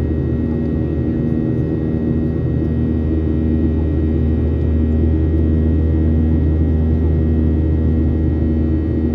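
Steady drone of a Boeing 737-800's CFM56-7B turbofan engines heard inside the passenger cabin, with a deep rumble and a few fixed humming tones.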